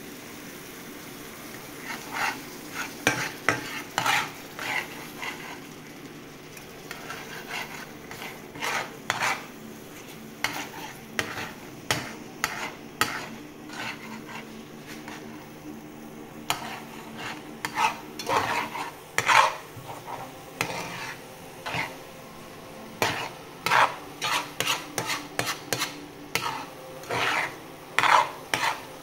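Metal slotted spatula scraping and stirring eggs and chopped tomatoes in a metal pan, in quick strokes starting about two seconds in, over the steady sizzle of the frying.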